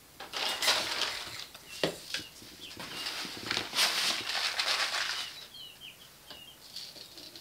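Backyard chickens moving about: several bursts of wing-flapping and rustling, with short high peeps from young chicks scattered throughout.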